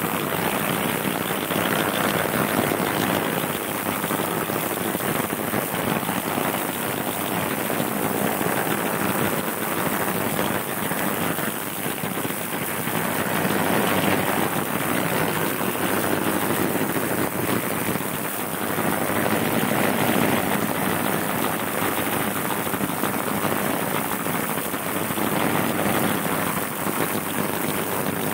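Ultrasonic cleaner running with a detergent solution for aluminium: a steady rushing noise from the agitated liquid that swells and eases gently every few seconds.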